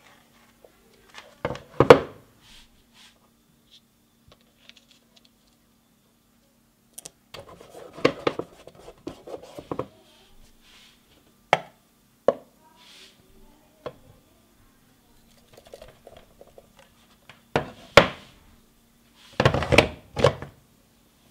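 Handling of a plastic battery charger on a wooden workbench: scattered knocks, clicks and rubbing, with a faint steady hum underneath. A cluster of stronger clunks comes near the end as the 12 V battery pack is pushed into the charger.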